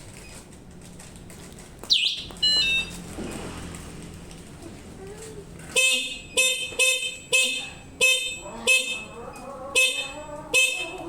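Varilux Pro electric bicycle's electric horn beeping about ten times in short, quick blasts, tested through the newly fitted single-function horn button. A sudden loud sound with a falling whine comes about two seconds in.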